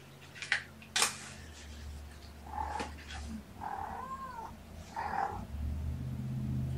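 Ten-week-old kittens mewing: three short high calls about three, four and five seconds in, the middle one rising and falling in pitch. Two sharp clicks come in the first second, and a low hum comes and goes underneath.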